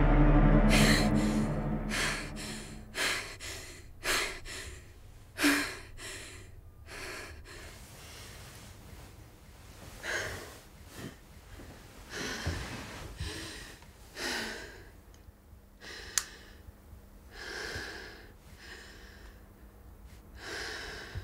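A young woman breathing hard in gasps, quick at first and then slowing and spacing out. Music fades out at the start.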